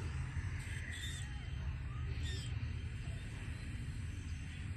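Steady low outdoor rumble with a few short bird calls: one about half a second in, one about a second in, and one just after two seconds.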